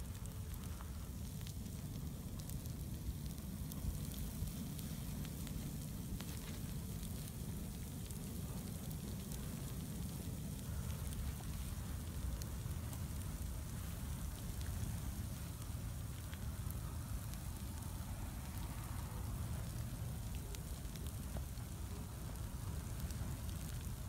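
Wood bonfire burning, with scattered crackles and pops over a steady low rumble.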